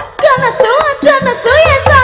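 Live Javanese band music: a woman sings a winding, ornamented melody over hand-drum and percussion strokes. A low bass note enters near the end.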